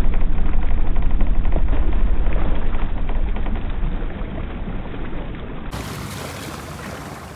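A small boat under way on its outboard motor: a loud, rough rushing and rumbling that dies down over the last few seconds.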